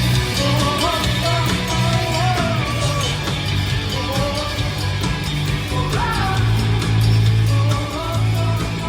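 Rock band playing live at an arena sound check: a woman singing over heavy bass, guitar and drums, recorded from far back in the empty hall.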